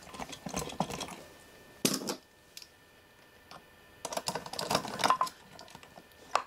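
Small metal clicks and taps of a hex key and small screws working on a machined aluminium box as the screws holding a circuit board are undone: a few clicks, a sharp click about two seconds in, a pause, then a busier run of clicks.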